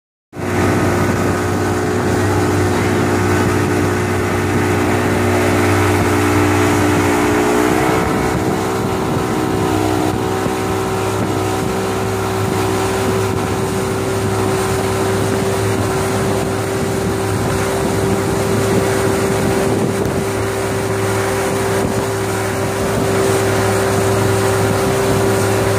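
Motorboat engine running steadily at speed, with wind noise on the microphone; the engine's pitch steps up slightly about eight seconds in.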